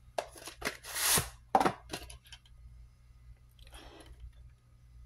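Handling noise from a VHS tape case: a few sharp plastic clicks and knocks in the first two seconds, then quiet.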